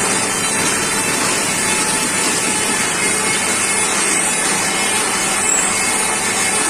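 Lathe running and cutting: a steady, loud machining noise.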